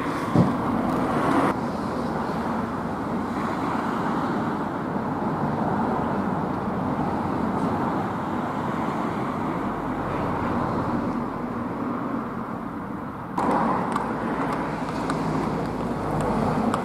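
Steady outdoor background noise like distant road traffic, with a short thump about half a second in. The noise level jumps abruptly twice, once near the start and once near the end.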